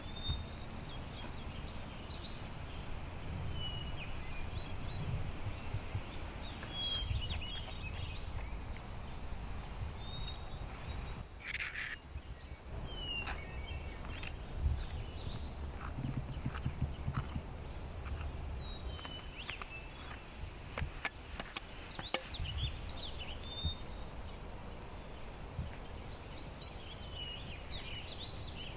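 Small birds chirping in short calls throughout, over a low rumble, with scattered clicks and scrapes of a metal knife and spoon against a steel tray.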